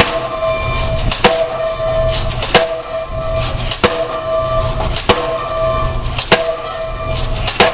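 Pile driver hammering a pile: a heavy blow about every 1.3 seconds, seven in all, each followed by a ringing tone that lasts until the next, over a steady low rumble.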